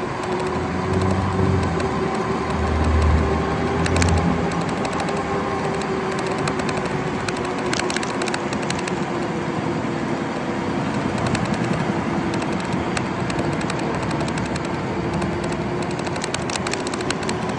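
A car running: a steady drone with a low rumble in the first few seconds, overlaid by dense rapid clicking.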